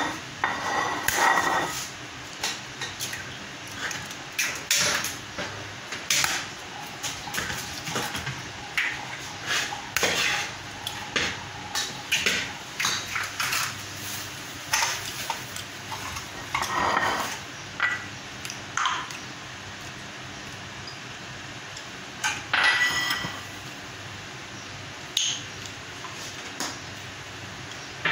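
Kitchenware clinking and knocking as a ceramic bowl and utensils are handled: irregular taps throughout, two of them ringing briefly.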